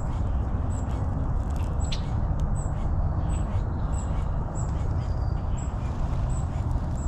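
Steady low wind rumble on the microphone, with a short, high note repeating about every two-thirds of a second and scattered bird calls above it.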